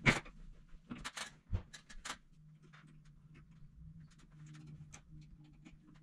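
Small sharp clicks and taps of metal sliding barn door hardware being handled at the end of the rail, the loudest at the start and a cluster between one and two seconds in, then lighter ticks. A faint steady low hum sits beneath from about two seconds in.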